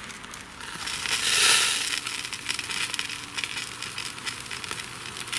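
Burgers and kebabs sizzling over a charcoal barbecue, a dense patter of crackles that swells louder about a second and a half in.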